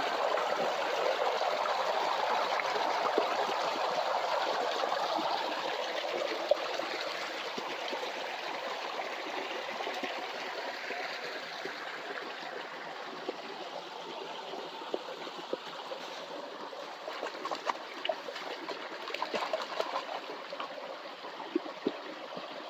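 Creek water rushing and babbling steadily, slowly growing fainter, with a scattered handful of light sharp knocks in the later part.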